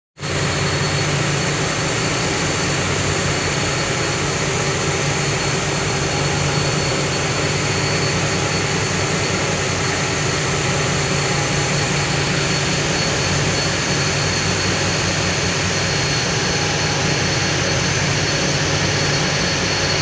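Cargo ship underway at sea: a steady low engine drone under a constant wash of wind and water noise.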